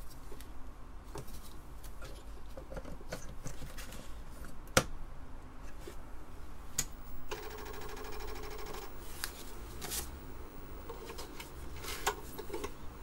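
Clicks, knocks and rustles of hands working a ribbon interface cable, a Disk II drive and a 5.25-inch floppy disk on the bench, with one sharp click about five seconds in. A buzzing rattle lasts about a second and a half a little past the middle.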